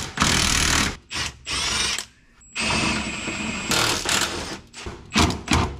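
Cordless impact wrench running in several bursts of about half a second to a second, then a few short blips near the end, spinning out rear subframe bolts that were first cracked loose with a breaker bar.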